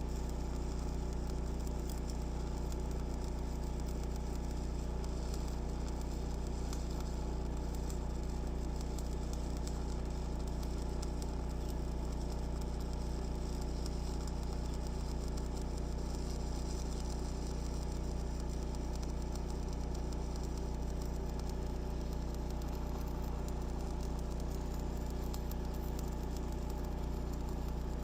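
Welding machine running with a steady low hum, under a faint, even crackle of stick welding with a 7018 rod.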